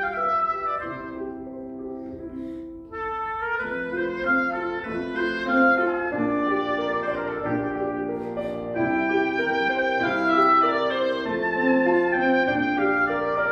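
Clarinet and piano playing classical music together. The sound fades to a brief low point about three seconds in, then the clarinet re-enters with a melodic line over piano chords.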